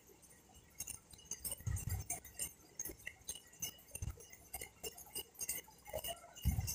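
Scattered light clinks and a few soft knocks of a utensil against a metal karahi as the simmering curry is stirred.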